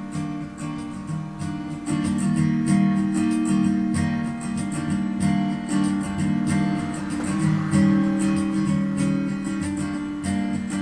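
Acoustic guitar strumming a steady rhythmic intro, getting louder about two seconds in.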